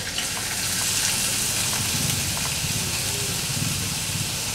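Chopped onions sliding into hot oil with cumin seeds and curry leaves in a kadhai, sizzling steadily. The sizzle grows a little louder about a second in as the onions land in the oil.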